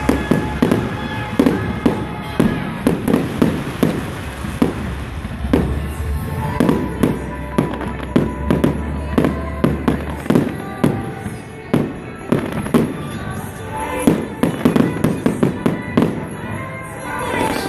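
Aerial fireworks display: a rapid run of sharp bangs, several a second, that thins out briefly about two-thirds of the way through before picking up again.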